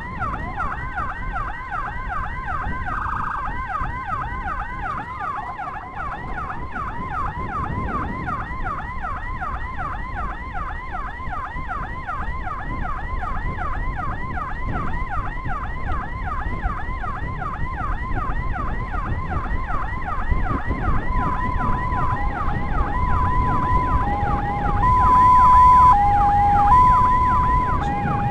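Escort motorcycle's electronic siren in a fast yelp, sweeping up and down about three times a second, over road noise. A held higher tone sounds for a few seconds about a second in. From about 21 s a second siren joins with a two-tone hi-lo alternation, and this is the loudest part.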